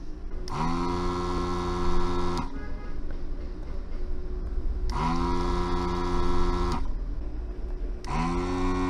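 Hikari HK915 desoldering station's vacuum pump running in three bursts of about two seconds each as the gun's trigger is pressed to suck solder from circuit-board pins. Each burst starts with a quick rise in pitch, then settles into a steady hum.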